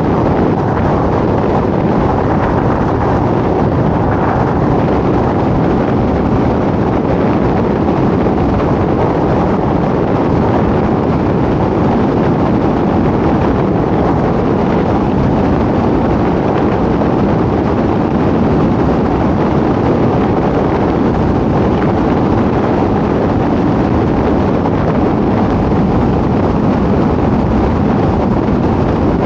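Steady rush of road and wind noise from a moving car, even throughout with no distinct engine tone or separate events.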